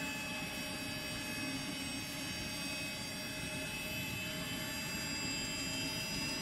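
Swiwin 300 RC micro turbine engine spinning with a steady whine of several high held tones over a low hum, the tones shifting slightly near the end.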